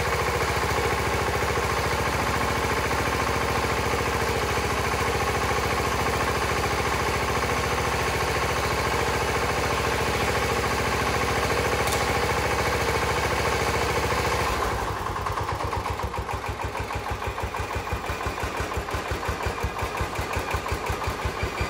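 Freshly rebuilt Onan twin-cylinder engine of a 1978 John Deere 316 garden tractor running steadily just after starting. About fifteen seconds in it drops to a very low idle, a slow, even chugging.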